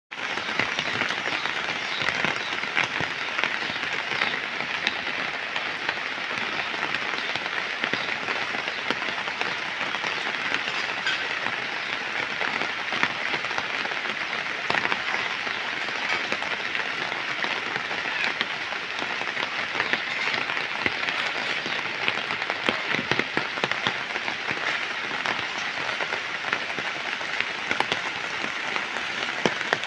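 Steady heavy rain, a dense patter of close drops that keeps up without a break.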